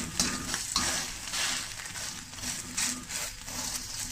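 Thin layer of beaten egg sizzling in hot oil in a metal wok, with a perforated metal spatula scraping the wok several times as the egg is turned.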